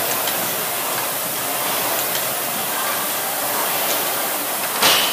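Two air-resistance rowing machines being rowed hard, their flywheel fans giving a steady rushing air noise. A brief louder burst of noise comes near the end.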